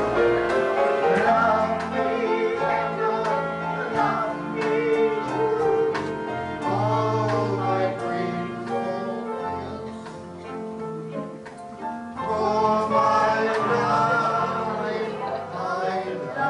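A man singing into a microphone over instrumental accompaniment, in a duet with a woman.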